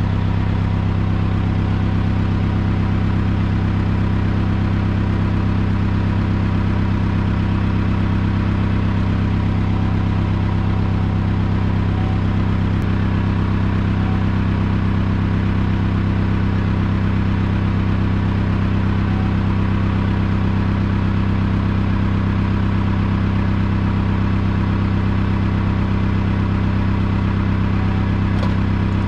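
An engine running steadily at one constant speed, a loud unchanging drone.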